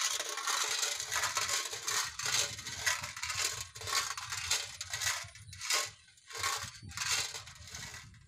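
A wind-driven sheet-metal bird-scaring pinwheel (a 'giraka') rattling and clattering as it spins in the wind. The clatter runs on continuously at first, then comes in separate rattling bursts about every half second to second. The noise is meant to drive birds and rats off the crop.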